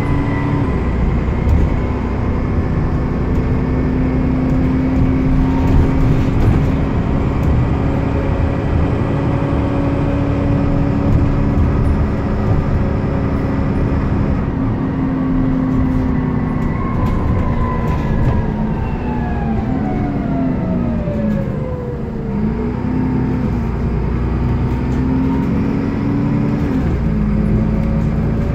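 Transbus Trident 2 double-decker bus driving along, heard from inside on the upper deck: a steady engine and drivetrain hum over road rumble. About halfway through, a whine falls in pitch as the bus slows, then the engine note rises and falls several times before settling.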